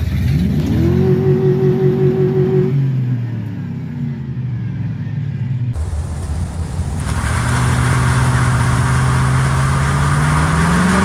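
Pickup truck engine revving up, holding high revs for about two seconds, then dropping back, heard from inside the cab. After a cut, a truck engine runs steadily under a loud steady hiss, and starts revving up again near the end.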